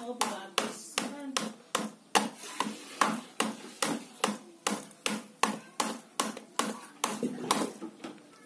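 A stone held in a child's hand knocking repeatedly against something hard, about three sharp knocks a second in an even rhythm, stopping near the end.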